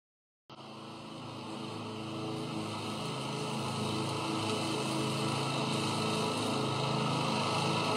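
Walk-behind petrol lawn mower engine running at a steady pitch, starting about half a second in and growing gradually louder.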